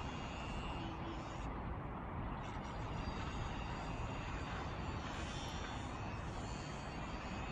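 Steady outdoor background noise with a low rumble and even hiss, with no distinct events.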